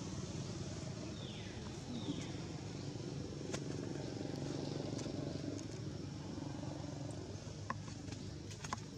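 Steady low rumble of motor traffic. Two short high chirps fall in pitch in the first two seconds, and a few sharp clicks come later.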